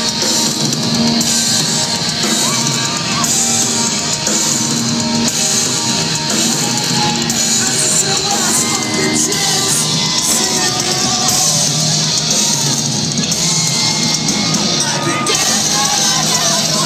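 Live rock band playing loud: electric guitars and drums with a shouted, sung vocal.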